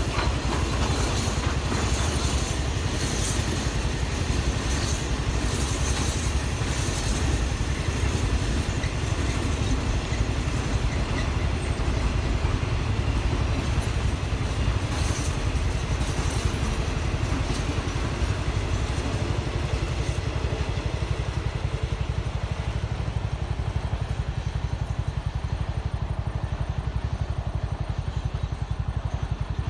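A long freight train of tank wagons rolling past: a steady low rumble with a hiss of rail noise above it. The higher hiss thins out over the second half.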